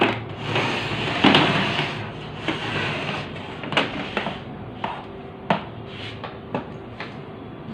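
An HP Neverstop 1200w laser printer scraping as it is slid across a table top for a couple of seconds, followed by several separate clicks and knocks as its power cord is handled and plugged into a wall socket.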